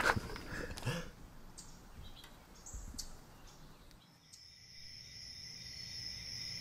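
Faint outdoor ambience with a few scattered chirps. About four seconds in, a steady chorus of crickets sets in, a continuous high trilling that holds to the end.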